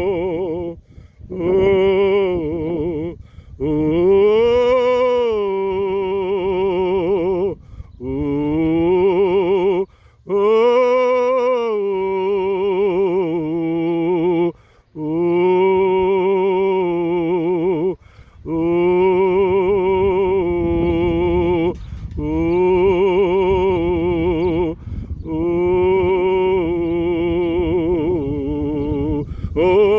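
Background music with a voice singing long, slow notes with vibrato, in phrases of a few seconds broken by short pauses.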